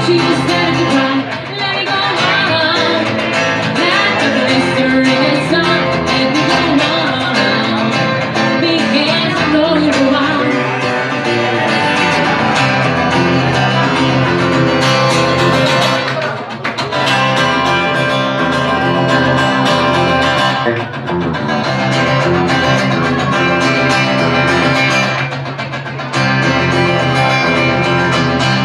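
Live band music: an acoustic guitar played under a woman singing.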